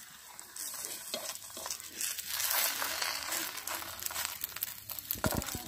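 Steel spoon scraping and pressing a thin rice-flour crepe against an oiled iron kadai as the pitha is folded and rolled, with a crinkly, light sizzling sound that is loudest about two seconds in. A few dull knocks come near the end.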